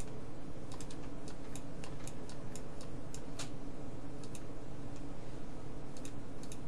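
Light, irregular clicks from working a computer's mouse and keyboard: about a dozen in the first three and a half seconds, a couple more around four and a half seconds, and a few more near the end, over a steady low hum.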